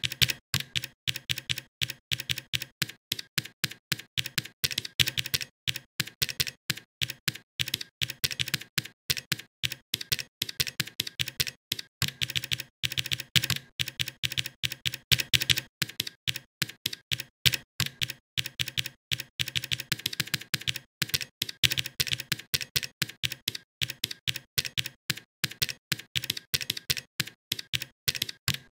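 Typing on a computer keyboard: a fast, uneven run of keystroke clicks with a few brief pauses.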